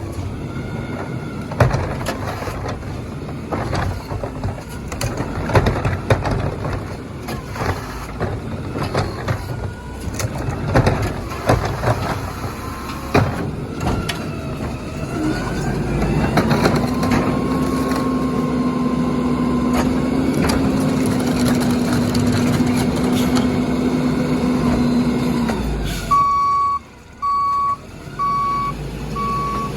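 Garbage truck packing recycling: a run of clanks and knocks, then a steady whine for about ten seconds as the packer runs. Near the end the truck's reversing alarm starts beeping at an even pace.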